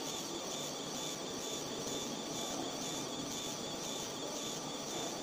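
Fiber laser marking machine running steadily while rastering a photo: its scanner and fan make an even hiss with a faint regular pulsing, about three times a second.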